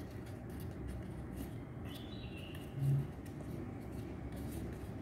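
Faint rustling and crinkling of a small square of origami paper being folded and creased by hand, with a short low hum about three seconds in.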